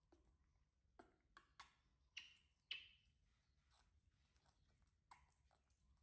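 Near silence broken by a scattering of faint, sharp clicks and smacks from fruit being peeled by hand and eaten, the loudest pair a little over two seconds in.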